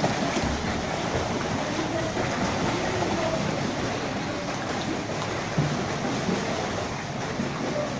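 Steady splashing of children's freestyle flutter kicks in a swimming pool.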